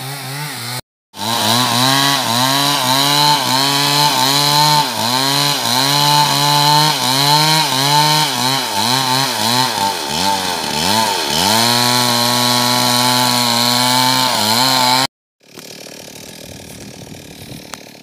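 Two-stroke chainsaw ripping a felled coconut-palm trunk lengthwise into planks. The engine's pitch dips and recovers over and over as the chain bogs under load in the cut. The saw cuts off suddenly about fifteen seconds in, leaving much quieter background sound.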